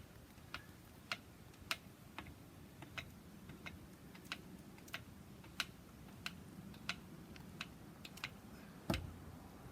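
Hand lever grease gun being pumped into an excavator's track adjuster grease fitting to tighten the track: a steady series of light clicks, about two every second, with a heavier knock near the end.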